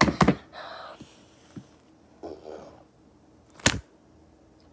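Slime being handled in a plastic tray: a sharp knock right at the start and another about three-quarters through, with softer squishing and rustling between.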